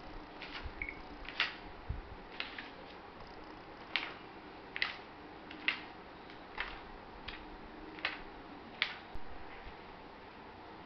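Pages of a thick paper dictionary being turned one after another: about ten brief swishes of paper, roughly one a second, ending about nine seconds in.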